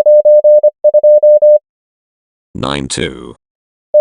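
A Morse code practice tone sends the digits 9 and 2 (dah-dah-dah-dah-dit, dit-dit-dah-dah-dah) as one steady beep keyed on and off at 25 words per minute. Near the end a voice reads the group aloud as "92".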